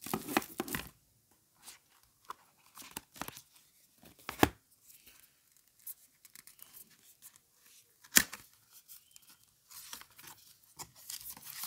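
Cardboard of a smartphone retail box being handled: the lid slid off and the inner paperboard tray lifted out, with scraping and rustling of card. Two sharp taps stand out, a little under halfway and about two-thirds of the way through, and the rustling thickens near the end.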